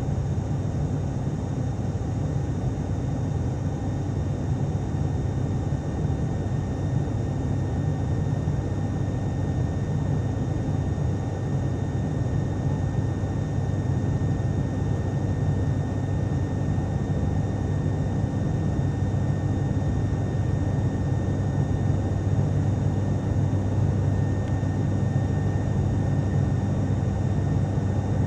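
Steady drone of an ATR turboprop airliner heard from inside the passenger cabin in flight: a deep, even hum from the engines and propellers, with faint higher steady tones above it.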